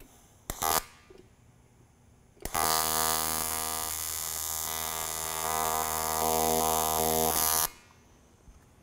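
AC TIG welding arc on aluminum, buzzing steadily for about five seconds and cutting off abruptly, run at high heat on the foot pedal to start a tack weld. A short burst sounds about half a second in, before the steady arc.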